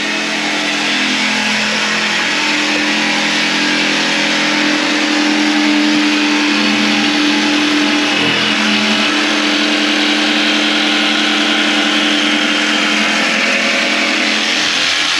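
Cordless jigsaw running steadily as it cuts through a board, a continuous loud motor drone with the blade's rasp.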